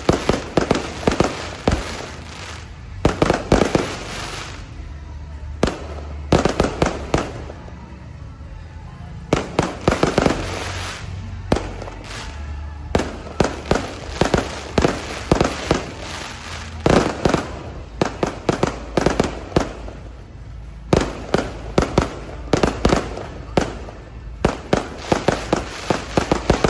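Aerial fireworks display: clusters of rapid sharp bangs and bursts, one volley after another every second or two.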